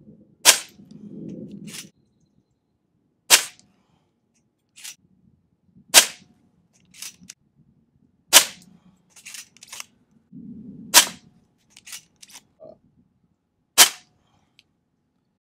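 A moderated Diana Bandit .22 PCP air pistol firing six shots, spaced about two and a half seconds apart, each a short sharp report. Fainter clicks come between the shots.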